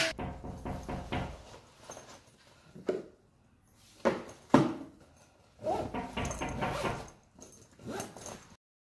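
A plastic lunch box's clip lid snaps shut with a sharp click. A few knocks and rustles follow as the box is pushed into a fabric lunch bag, and then a zipper is pulled along the bag's top in two long strokes.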